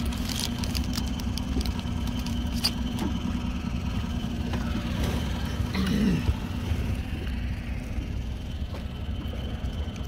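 Small boat's outboard motor running steadily under way. A few light clicks and rattles come in the first few seconds.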